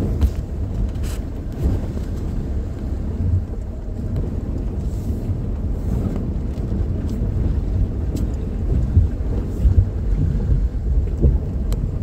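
Four-wheel-drive vehicle fording a river, heard from inside the cabin: a steady low rumble of the engine and of water churning against the wheels and underbody, with a few faint clicks.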